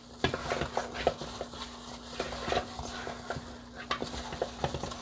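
Gloved hand rubbing and turning oxtail pieces coated in browning in a stainless steel bowl: irregular wet squishes and light knocks of meat against the bowl, over a faint steady hum.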